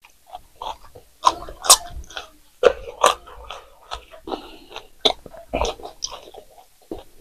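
Close-miked chewing of green chilli and samosa, with irregular wet mouth clicks, crunches and lip smacks.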